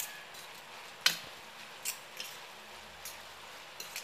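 A utensil stirring noodles in a ceramic bowl, knocking against the bowl with several sharp clinks, the loudest about a second in.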